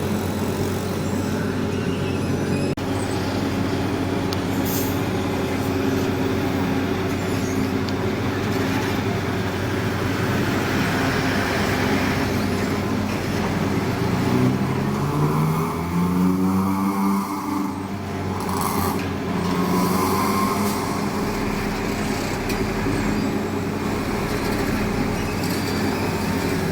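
Heavy diesel engine running steadily, revving up about halfway through and then dropping back.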